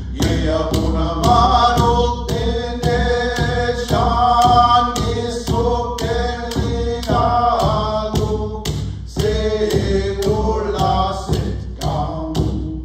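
Men singing a Mi'kmaw song in a chanting style, accompanied by a hand-held frame drum struck in a steady, even beat.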